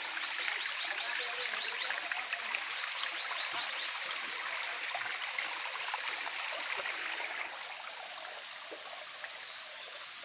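A stream's water running steadily, easing off a little about three quarters of the way through.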